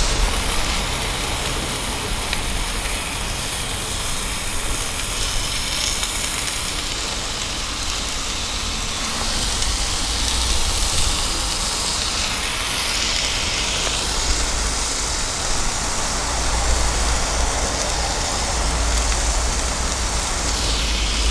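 Beef burgers sizzling steadily in a hot, lightly oiled cast-iron skillet inside a wood-fired oven, with the wood fire burning beside them and a steady low rumble underneath.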